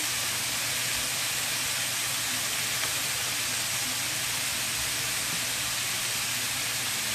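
Flour-coated chicken tenders frying in hot oil in a stainless steel pan: a steady sizzling hiss of bubbling oil.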